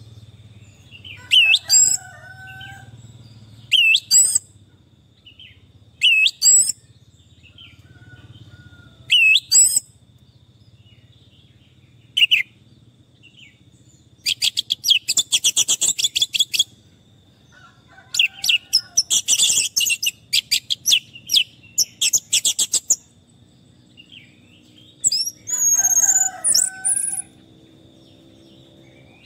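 Orange-headed thrush singing: short, high whistled phrases every two or three seconds, then two runs of fast repeated notes, and a longer varied phrase near the end. A faint steady high tone runs underneath.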